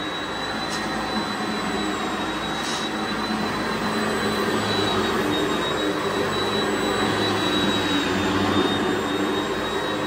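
Sanitaire SC-679K upright vacuum cleaner running on a shag carpet: a steady rush of air with a high motor whine, a little louder in the middle as it is pushed back and forth.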